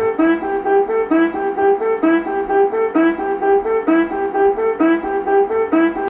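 Music playing: a melody of short, evenly repeated notes, about four to five a second, with little deep bass.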